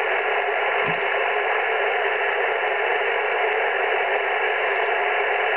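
Amateur radio transceiver on 21.252 MHz in the 15-metre band, its speaker giving a steady hiss of band static while no station is transmitting.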